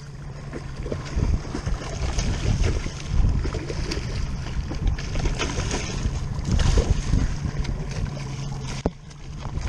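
Wind buffeting the microphone over the steady hum of an idling outboard motor, with water splashing as a hooked kingfish thrashes at the surface beside the boat. The motor hum drops out briefly near the end.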